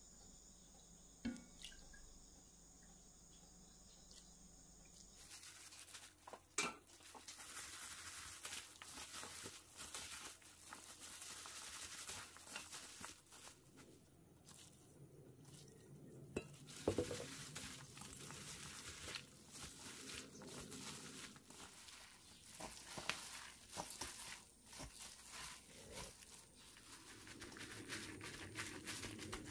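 Sweet potato stem kimchi being mixed by hand in a stainless steel bowl: a plastic glove crinkling, with wet stems squishing and small irregular clinks and knocks against the bowl. It begins with a few quiet seconds and a light spoon tap, and near the end the stems are pressed into a glass container.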